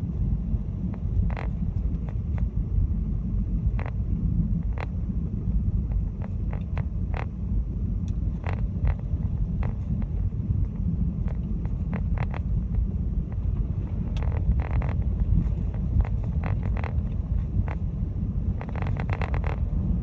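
Steady low rumble of a car driving on a snow- and ice-covered road, heard from inside the cabin, with scattered sharp crackles that come in quick clusters twice near the end.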